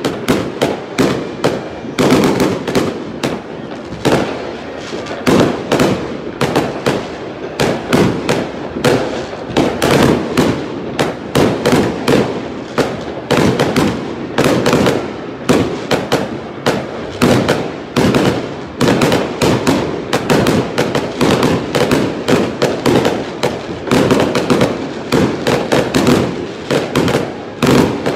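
Aerial fireworks going off in rapid, overlapping bangs, several a second, with no pause.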